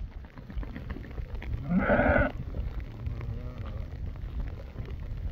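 A sheep bleats loudly once, about two seconds in, and a fainter bleat follows a second later, over a low rumble of wind on the microphone.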